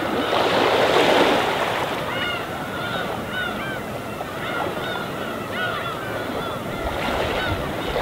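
A flock of gulls calling, many short rising-and-falling cries overlapping, over small waves washing onto the shore. One wave swells loudest about a second in and fades away by two seconds.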